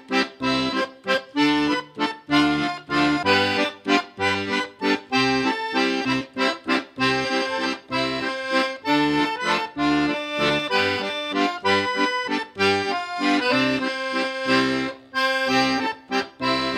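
Instrumental background music with a steady, rhythmic bass line under quick melody notes.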